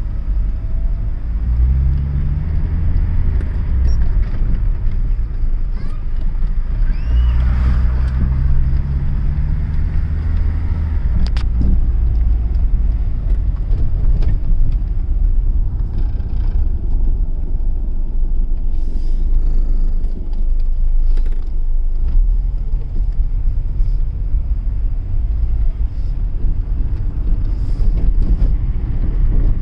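Hyundai Santamo minivan with automatic transmission driving, heard from inside the cabin: a steady engine and road rumble, with the engine note climbing as it accelerates near the start and again a few seconds later. A few sharp knocks come through partway along.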